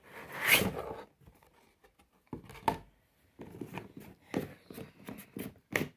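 A cardboard box sleeve sliding off a plastic carry case with a scraping swish, then a run of irregular clicks and knocks as the hard plastic case is handled and set against the table.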